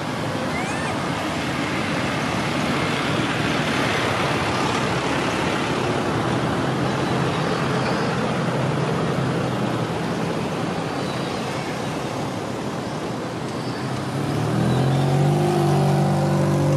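Steady rushing background noise of road traffic. About fourteen seconds in, a motor vehicle's engine hum comes up and holds.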